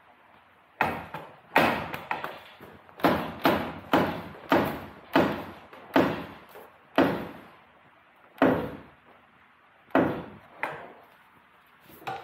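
About a dozen sharp knocks on metal, each ringing briefly, spaced irregularly half a second to a second and a half apart.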